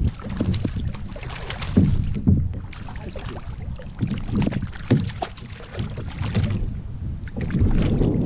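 Kayak on a river: irregular splashes and knocks of water and paddle, with a steady low rumble of wind on the microphone.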